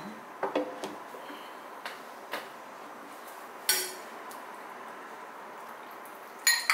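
A metal ladle knocking and clinking against glass bowls while water kimchi is ladled into a small glass dish: a few light knocks, then two sharp ringing clinks, one about midway and a louder one near the end.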